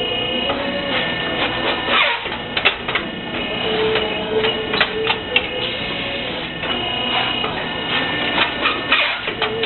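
Interlocking brick making machine running: a steady machine whine that starts and stops, under irregular clanks and knocks of metal parts.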